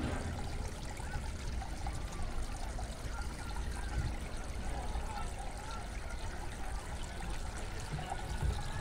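Water trickling and splashing steadily in a small garden pond, from its bubbling fountain.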